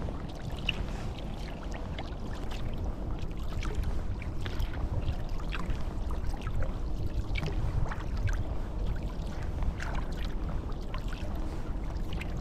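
Wooden Greenland paddle dipping into calm sea water as a sea kayak is paddled, with scattered drips and small splashes over a steady low rumble.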